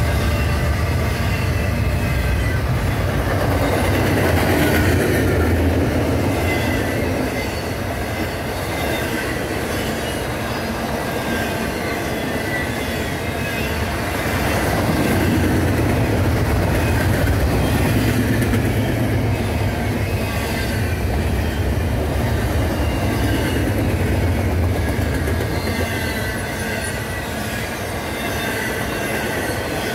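Double-stack intermodal well cars of a freight train rolling past on the rails: a steady heavy rumble of steel wheels on track, with thin high-pitched wheel squeal wavering in and out.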